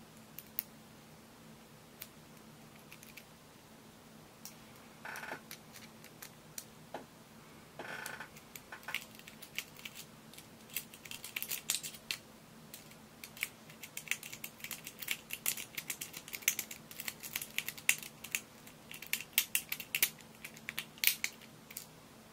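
A metal lock pick scraping and clicking against the pins inside a euro profile lock cylinder held under a tension wrench. There are two short scrapes early, then a run of quick, small irregular clicks that grows denser about ten seconds in.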